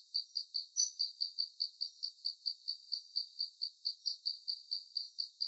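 Cricket chirping in a steady, even rhythm, about four or five short chirps a second.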